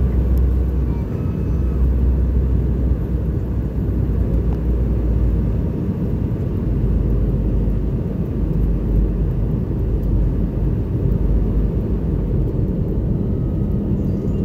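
Steady cabin noise inside a Boeing 717 airliner descending to land: a low rumble of airflow over the fuselage and the rear-mounted Rolls-Royce BR715 turbofans. A faint steady hum comes in near the end.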